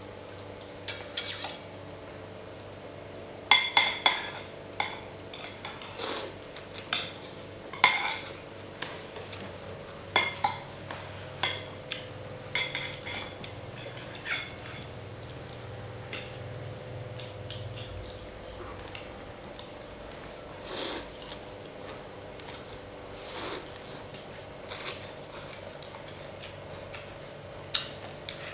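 Metal spoons and a fork clinking and scraping against ceramic plates and bowls, in scattered irregular clicks throughout.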